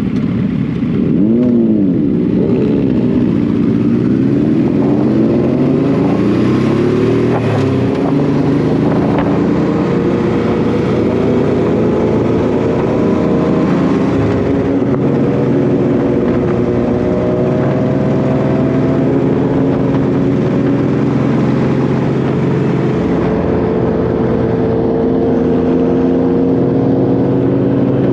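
Honda VT1100 Shadow Ace V-twin motorcycle engine running under way. Its pitch dips and climbs through the first several seconds as road speed changes, then holds and rises slowly as the bike pulls.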